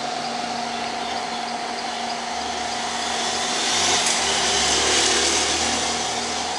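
Cooling fan running steadily with a steady hum. A louder rushing hiss swells about three seconds in and fades toward the end.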